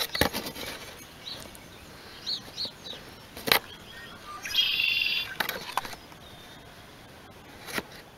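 A songbird sings one short, rapid, high trill about halfway through, with a few faint chirps before it. Sharp knocks and clicks come from plastic milk jugs being handled, the loudest about three and a half seconds in.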